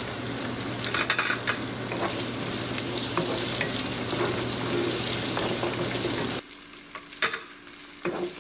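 Onion, tomato and garlic sizzling in hot oil in a frying pan while a wooden spoon stirs them. About six seconds in the sizzle suddenly drops quieter, with a couple of clicks from the spoon.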